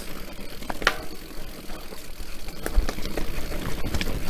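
Enduro mountain bike riding fast down a rough forest trail: frame and chain rattling, with scattered sharp knocks as the tyres hit roots and stones over a steady low rumble.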